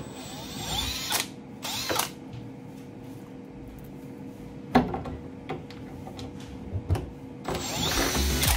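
Makita cordless drill-driver with a screwdriver bit, run in short bursts to drive screws, its motor whine rising and falling. Between the runs come a few sharp knocks and clicks of handling inside the cabinet, the loudest about halfway through.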